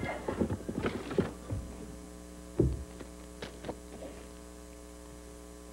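Steady electrical mains hum under handling noises: rustling and clicks as a cardboard box and a carded blister package are handled. There is a single low thump about two and a half seconds in, and a few light clicks after it.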